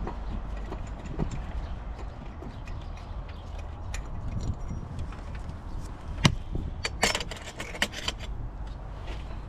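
Metal hand tools clicking and clinking during work on a car's air conditioning compressor: a sharp knock about six seconds in, then a quick run of metallic clicks, over a steady low rumble.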